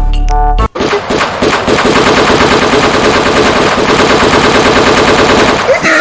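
A long burst of rapid automatic machine-gun fire, running for about five seconds, used as the fake gunfire in a prank. A short deep boom comes just before it, and the firing stops just before the end.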